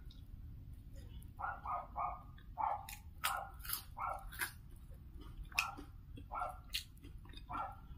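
A dog barking repeatedly, short barks in ones, twos and threes about once or twice a second, along with sharp lip-smacking clicks from eating.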